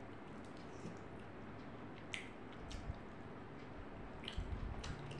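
Close-miked mouth sounds of a person chewing a mouthful of rice and fish: a few scattered wet clicks and smacks over a steady low hiss.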